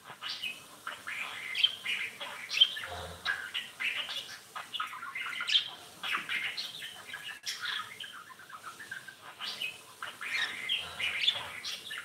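Small pet birds chirping and chattering: a continuous run of short, high calls with occasional louder ones.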